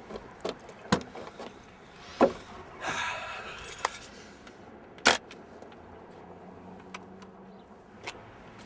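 Car keys jangling and a series of sharp clicks as a car's trunk is unlocked and opened. The loudest click comes about five seconds in.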